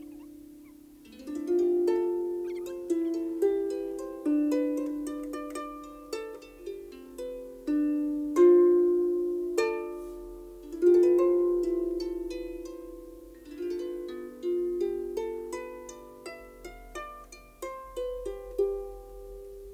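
Harp playing a slow melody of plucked notes, each note ringing on and fading away.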